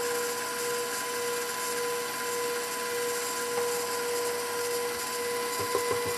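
KitchenAid Professional 550 HD stand mixer running steadily with its wire whisk, beating flour into a thick batter in a steel bowl: an even motor whine. A few light taps near the end.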